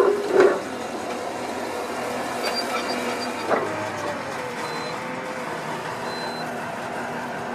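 Engine of a tracked drainage-pipe laying machine running steadily, with a loud clatter right at the start and a single sharp knock about three and a half seconds in.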